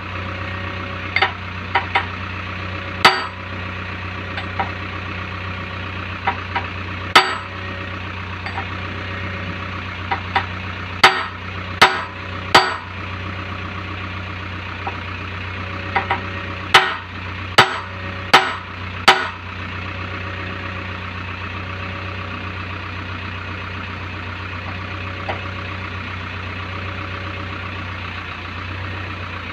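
A hand hammer strikes a steel drift at a bucket pin bore on a JCB backhoe's dipper arm, working the pins during a bucket change. About a dozen sharp, ringing metal blows come in uneven groups and stop about two-thirds of the way through. Under them the backhoe's diesel engine idles steadily.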